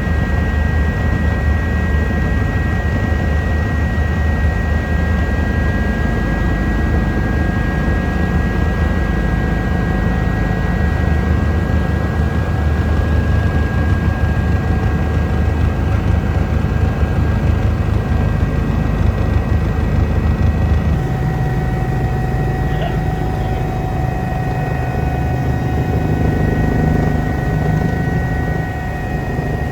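Eurocopter EC145 helicopter running steadily in flight: a constant low rotor and engine hum with a high turbine whine held on top. The low hum and the whine tones shift about two-thirds of the way through.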